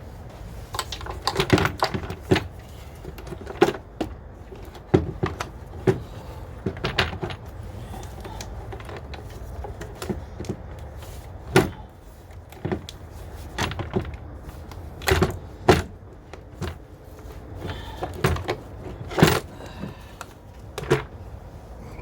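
Irregular clicks, knocks and rattles of hoses, clips and plastic engine parts being handled and pulled off by hand, over a steady low hum.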